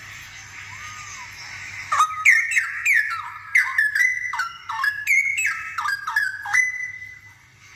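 Straw-headed bulbul singing: after a soft opening note, about two seconds in it breaks into a loud, fast run of bubbly gliding whistled notes that ends on a held note fading away.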